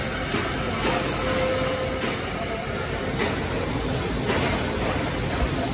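Three-spindle CNC mortising machine running, its router spindles giving a steady whine over the noise of cutting wood. Two short bursts of high hiss come about a second in and again near the end, with a few sharp clicks.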